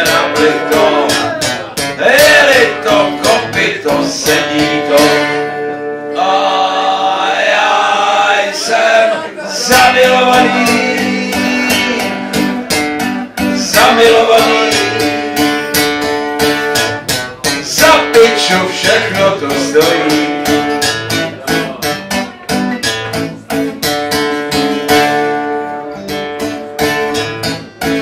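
A man singing a waltz in Czech to his own strummed acoustic guitar. About six seconds in the guitar stops for roughly three seconds, leaving the voice alone, then the strumming comes back in.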